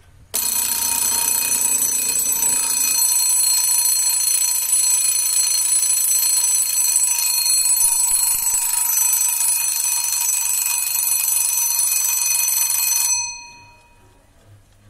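Round Star mechanical wind-up alarm clock's bell alarm going off: the clapper rings the bell continuously. It starts suddenly about half a second in and cuts off near the end, the bell's tones dying away for a moment.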